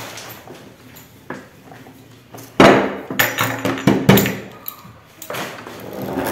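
A quick run of sharp knocks and clatters of kitchen things on a wooden table, about halfway through, followed by a softer rustle near the end.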